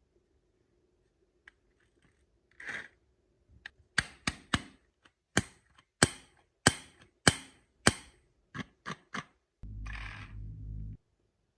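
Marbles clattering down a wooden HABA marble run: a quick string of sharp wooden clacks, about two a second, as they drop from track to track. Near the end comes a steady rolling rumble lasting about a second.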